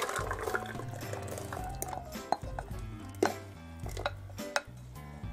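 Thick grass-pea purée being poured and scraped from a bowl into a saucepan with a spoon, with a few sharp knocks of the spoon against the bowl. Background music with sustained notes plays throughout.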